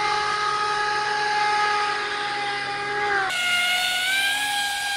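Radio-controlled airboat's motor and air propeller running at speed: a steady high-pitched whine. About three seconds in it switches abruptly to a slightly different whine that rises a little in pitch.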